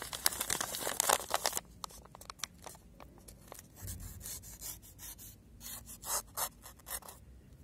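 Paper-cutting test of a new knife's factory edge: the steel blade slices down through a sheet of leaflet paper in a run of crackly, scratchy rustles. The rustles are loudest for the first second and a half, then fainter.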